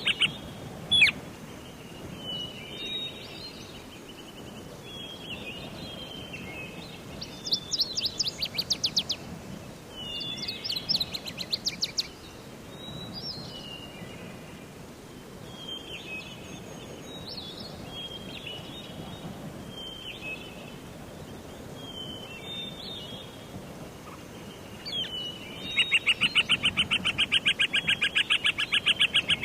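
Forest songbirds singing: a run of short chirps and warbling phrases, with quick rattling trills about eight and eleven seconds in, and a loud, fast trill starting near the end. A faint steady hiss lies underneath.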